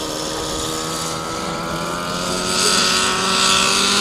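Nitro RC helicopter's glow engine and rotor running, rising in pitch and getting louder from about two and a half seconds in as the head spools up for lift-off.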